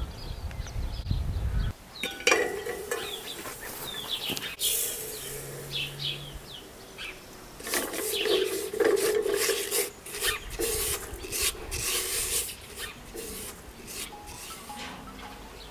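A plastic spoon stirring and scraping crystals around in water in an aluminium pot, in repeated strokes with clinks against the metal.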